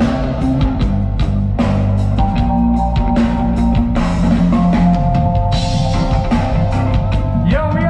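Reggae band playing live through a festival sound system, with heavy bass and drums. Recorded on a phone from inside the crowd.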